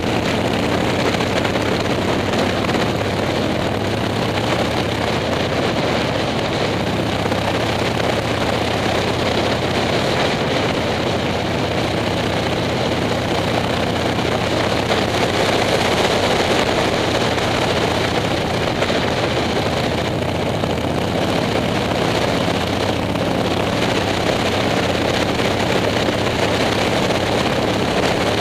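Motorcycle engine running steadily at cruising speed, heard from a handlebar-mounted onboard camera with wind and road noise rushing over it.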